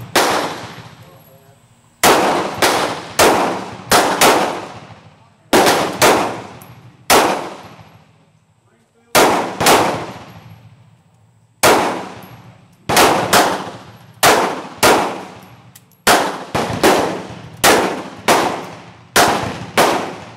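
Gunshots from a Ruger LCR .38 Special snub-nosed revolver, fired in quick strings of several shots about half a second apart with short pauses between strings. Each shot is a sharp crack with a ringing echo tail.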